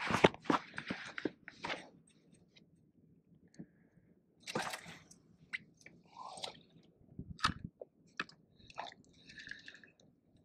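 Handling noise from a spinning rod and reel: irregular clicks, knocks and rustles, loudest in a cluster at the start, then scattered sharp clicks and short noisy bursts.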